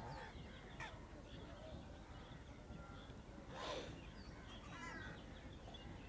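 A flock of gulls calling: faint, scattered harsh cries, with a louder cry about three and a half seconds in and another near five seconds.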